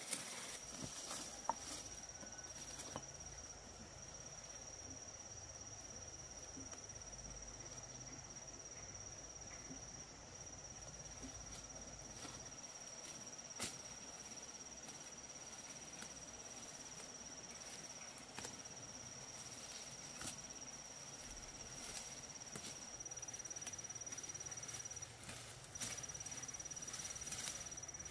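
Insect trilling, a steady high-pitched tone that breaks off briefly near the end, with scattered faint clicks and knocks, the sharpest about halfway through.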